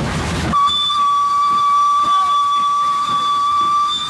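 Steam whistle of WP-class 4-6-2 steam locomotive 7161, heard up close from the cab: a loud hiss, then about half a second in one long, steady, high-pitched blast.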